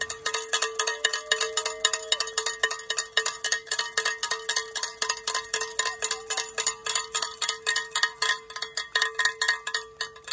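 A cowbell shaken rapidly and steadily, about six or seven strikes a second, each stroke ringing on the same clear note. This is the usual spectators' cheer for riders at a cyclocross race.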